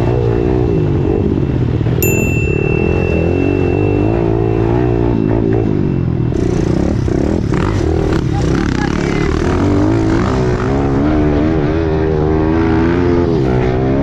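Engine of a Kawasaki KLX110 pit bike, a small single-cylinder four-stroke, heard from on board while riding a dirt trail. It revs up and down continuously with the throttle and gear changes, with other dirt bikes close by.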